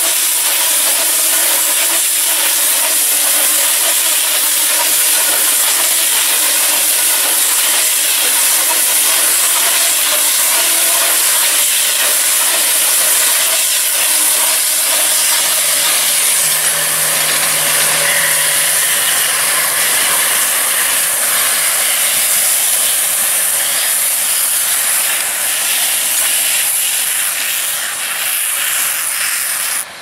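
McHale round baler-wrapper working behind a New Holland tractor: a loud, steady hissing machine noise that runs on without a break.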